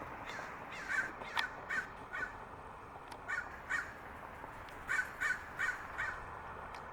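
American crows cawing: short, repeated caws in several quick runs, with pauses between the runs.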